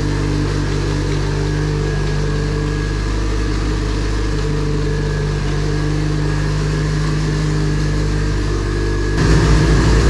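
Homemade 3-liter turbocharged sheet-metal engine idling steadily while its fuel-management baseline is being set, with a thin steady whine above the idle. Near the end it gets louder and rougher.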